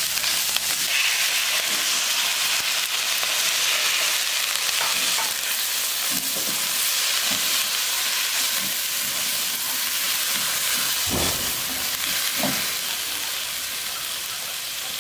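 Long beans and scrambled egg sizzling steadily in a wok with a little water just added, the spatula scraping and knocking against the pan now and then. The hiss eases slightly near the end.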